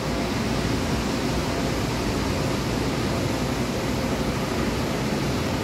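Steady machinery noise: a constant rushing hiss over a low rumble, with no breaks or separate events.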